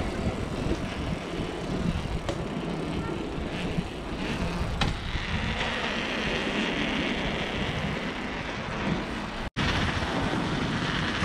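Wind rushing over an action camera's microphone and tyre rumble from a mountain bike rolling fast over paving stones, with a couple of light knocks from bumps. The sound cuts out for an instant near the end.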